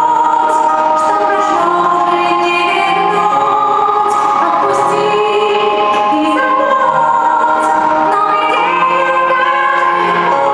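A song: singing voices carrying a melody in long held notes over a musical accompaniment.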